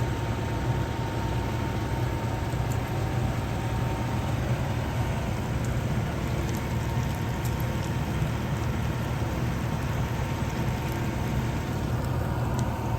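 Food sizzling on an outdoor grill, a steady hiss with faint scattered crackles, under a steady low rumble.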